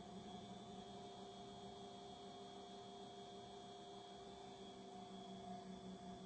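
Davey DynaDrive variable-speed, air-cooled booster pump running to supply one open tap: a faint, steady hum from its motor and fan, almost silent.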